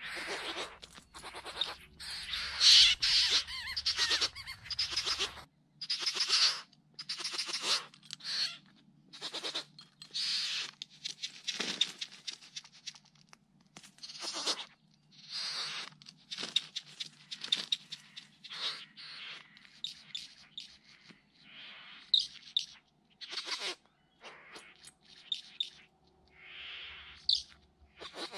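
Great bowerbirds giving harsh, rasping hissing calls at the bower, one after another in a long series of short calls, during the male's courtship display.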